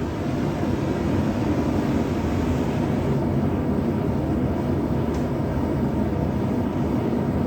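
Gas forge burner running with a steady, even rushing noise, freshly lit and turned up to heat steel for annealing.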